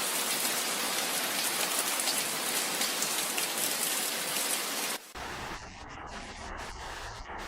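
Heavy rain falling, a dense steady hiss, which cuts off abruptly about five seconds in, replaced by a quieter low rumble with scattered ticks.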